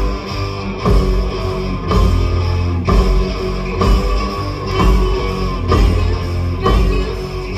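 Live rock band playing a heavy rock song: guitar, bass and drum kit, with a heavy accent about once a second.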